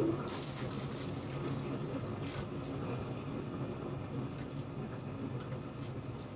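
A steady low hum runs throughout, with faint light clicks here and there as chopsticks turn pieces of pork in a foil-lined frying pan.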